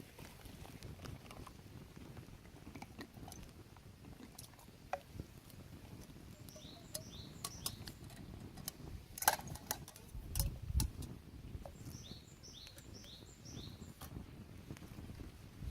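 Scattered light clicks and knocks, with a duller thump a little past the middle. A bird calls twice in the background, each time a quick run of high falling chirps.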